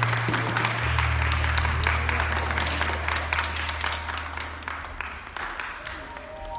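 Hand clapping from a small audience, many sharp claps thinning out toward the end, while the music's last low notes hold and fade out about five seconds in.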